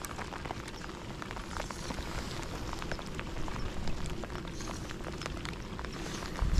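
Steady rain falling on the lake water and the kayak: a continuous patter of many small drop ticks over a low rumble. A single dull low thump near the end.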